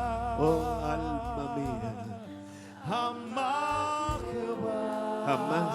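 Spanish Christian worship song sung with vibrato over a sustained instrumental accompaniment. One long held note, a brief lull about two and a half seconds in, then the singing picks up again on the words "jamás" near the end.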